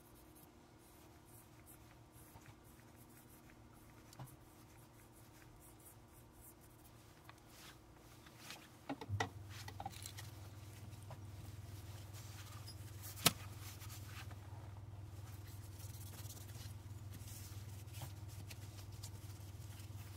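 Faint cloth rubbing and handling sounds as a blackened steel M7 bayonet blade is wiped down, with a few small clicks and one sharp click about 13 seconds in. A steady low hum starts about 9 seconds in.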